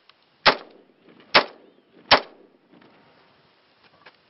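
Three rifle shots from an AR-15-style rifle, each a sharp crack with a short echoing tail, fired a little under a second apart.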